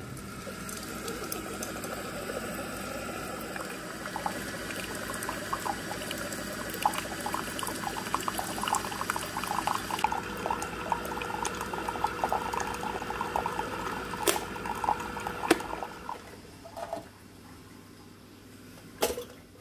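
Single-serve brewing machine dispensing hot water into a cup: a steady gurgling, hissing pour with crackling that stops a few seconds before the end, followed by a couple of sharp clicks.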